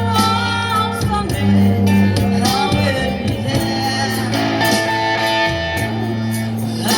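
A solo voice singing a melody with held, gliding notes over guitar accompaniment.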